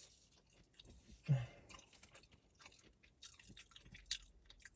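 Close-miked chewing of food: soft, wet mouth sounds with small scattered clicks.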